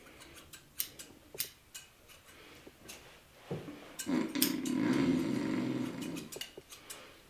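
Hair-cutting scissors snipping, a series of short sharp clicks. About four seconds in, a low drawn-out voice-like drone lasts about two seconds.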